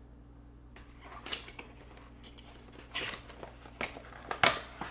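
Hands opening a cardboard model box: scattered short scrapes and taps of the card flap and packaging, the loudest about four and a half seconds in.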